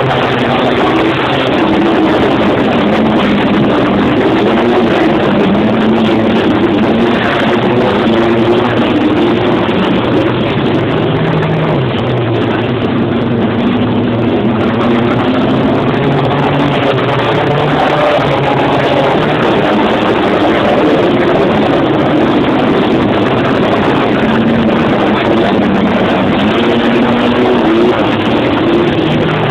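A pack of wingless sprint cars racing on a dirt speedway oval, several engines running hard at once. Their pitches rise and fall as the cars go round, loud throughout.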